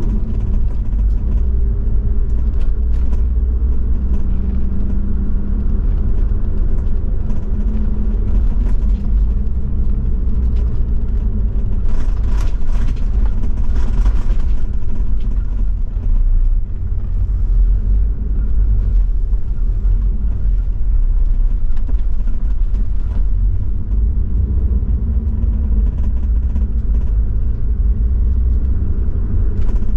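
Land Cruiser 70-series diesel engine and drivetrain running steadily as the truck drives along an unpaved forest road, a constant low rumble. Short knocks and rattles come and go over it, bunched together about twelve to fourteen seconds in.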